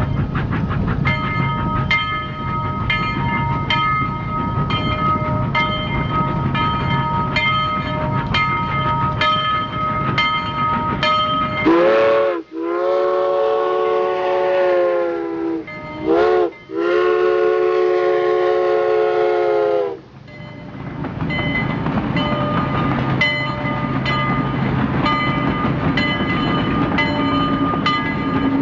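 Steam train running with a regular beat about twice a second; its whistle sounds a long blast about twelve seconds in, then a short toot and a second long blast, before the running sound returns.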